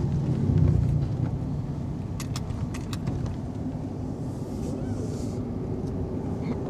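Road and engine noise inside a moving vehicle's cabin: a steady low rumble, with a few light clicks or rattles about two to three seconds in.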